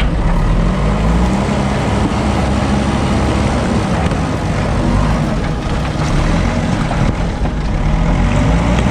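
Heavy vehicle engine running close by, its pitch rising and falling as it revs, over a steady rumble.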